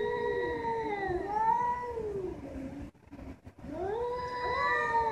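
Two cats caterwauling at each other in a face-off: long, drawn-out, wavering yowls that overlap at times. They break off briefly about three seconds in, then a new yowl rises.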